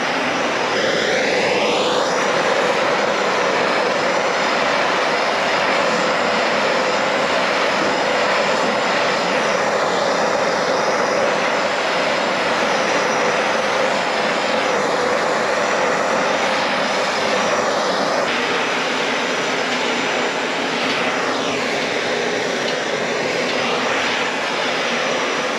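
Handheld gas blowtorch burning steadily with a rushing hiss as its flame heats a bare metal body panel, driving off moisture before the panel is tinned for lead loading.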